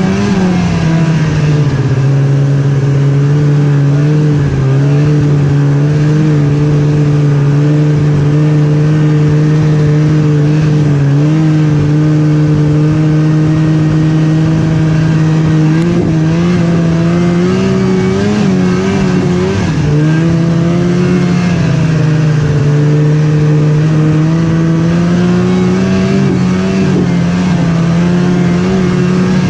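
Snowmobile engine running under way, loud and close, its pitch held fairly steady with small rises and dips as the throttle changes.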